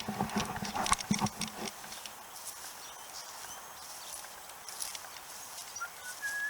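Footsteps over rough ground outdoors, a run of knocks and scuffs in the first couple of seconds, then lighter steps. A short high whistle starts near the end.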